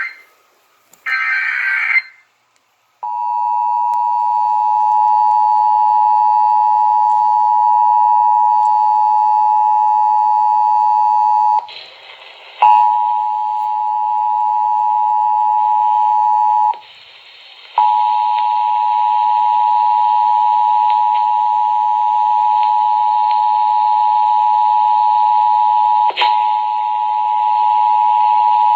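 Emergency Alert System test tones on the radio. A short burst of SAME digital header data is followed about a second later by the steady two-tone EAS attention signal. The tone drops out twice for about a second and picks up a faint hiss of static in its later part.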